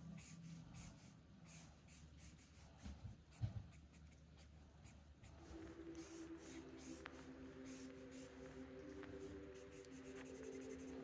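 Faint strokes of a felt-tip marker rubbing across sketchbook paper, with one soft knock a little before halfway. Soft background music comes in about halfway.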